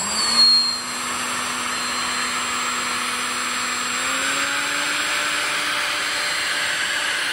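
Small 3D-printed electric ducted fan (EDF) running steadily: a rushing whine of air whose pitch rises slightly about four seconds in.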